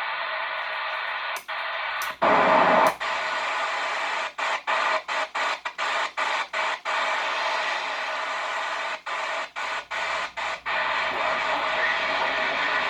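CB radio receiver, a Quad5 TopGun Technologies set, putting out steady band static. The hiss is chopped by many quick dropouts and has one louder burst about two seconds in, as skip signals fade in and out on a poor band.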